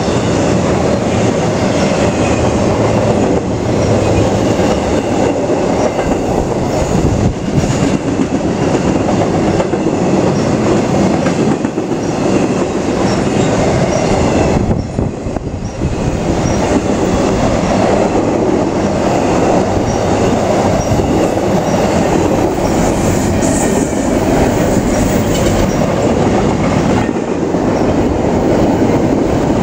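Intermodal freight train passing close by: trailer flatcars and double-stack container well cars rolling on steel wheels in a loud, steady noise, dipping briefly about halfway through.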